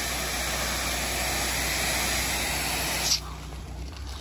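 Pressure washer spraying a high-volume stream through a shooter tip, a steady loud hiss over the low hum of the machine. About three seconds in the spray cuts off abruptly with a click, leaving the fainter hum.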